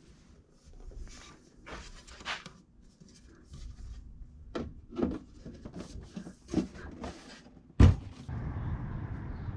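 Workbench handling noise: a black aluminium composite panel and an aluminium-angle frame being picked up and moved, with scattered knocks and rustles and one sharp knock near the end as the panel is set down. A steady low background noise sets in just after it.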